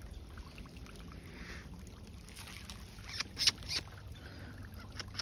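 Footsteps crunching and rustling through dry leaf litter, with a cluster of sharp crackles a little past halfway.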